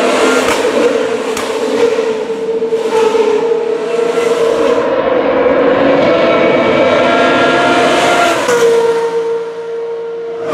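Formula Renault 3.5 cars' 3.4-litre naturally aspirated V8 engines at high revs as several cars come down the straight, their notes overlapping and rising in pitch as they accelerate. About eight and a half seconds in, the note drops and gets quieter.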